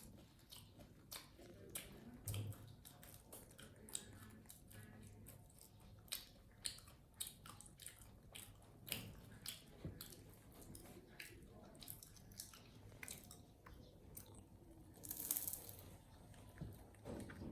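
Faint, irregular crunching and clicking of a monkey chewing food, with a brief louder rustle about fifteen seconds in.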